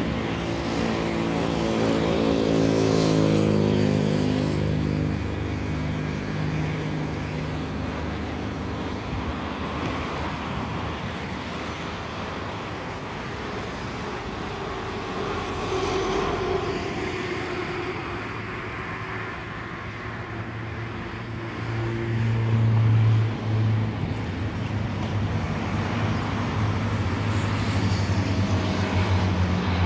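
Road traffic: a vehicle passes in the first few seconds with its engine pitch falling, then a steady traffic hum. Toward the end the jet engines of an Airbus A319 on final approach grow louder as it nears.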